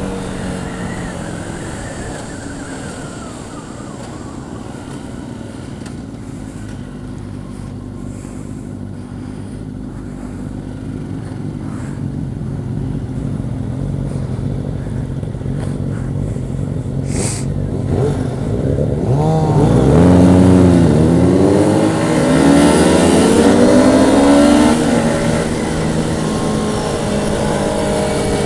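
Motorcycles in a group: a steady engine drone, then about twenty seconds in, several engines revving up and down in quick rising and falling sweeps for a few seconds, the loudest part, before settling back to a steady run.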